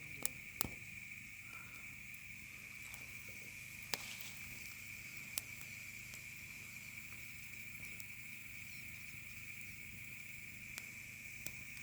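Steady, high insect chorus, crickets or similar, running without a break, with about six sharp snaps scattered through it.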